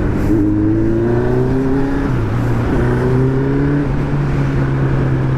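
Motorcycle engine accelerating hard: its pitch climbs, drops briefly at an upshift about two seconds in, climbs again, then holds steady.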